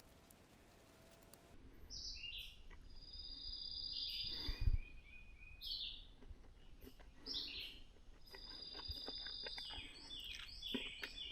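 Songbirds singing in repeated high phrases, some held as a buzzy trill, starting about a second and a half in. Under them are scattered light clicks and one dull thump about halfway through.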